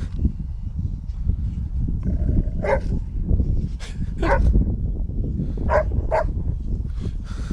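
A dog barking: six short barks in three pairs, spaced a second or more apart, over a steady low rumble.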